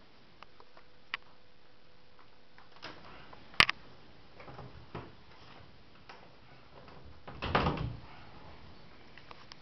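Small dogs' claws ticking on a tiled floor as they move about, with one sharp click about three and a half seconds in and a louder, brief scuffling burst about half a second long near the end.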